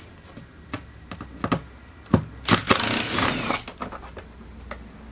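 Cordless drill running for about a second as it backs out a long screw holding an MDF packing board, after a few light clicks of the bit being set on the screw head.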